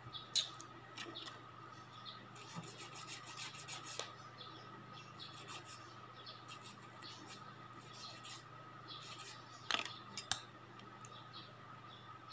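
Nail file rasping against fingernails in short strokes, with a quick run of rapid strokes a little over two seconds in and sparser strokes after. A few sharper clicks near the end.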